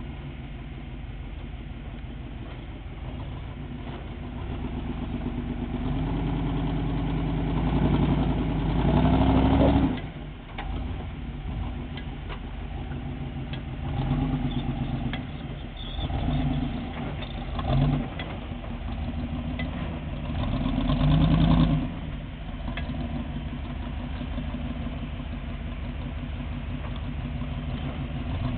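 Rock crawler buggy's engine running at a steady idle and revving up in bursts as it climbs over boulders. The longest, loudest rev builds from about six seconds in and cuts off sharply near ten seconds, followed by short blips of throttle and another hard rev a little past twenty seconds.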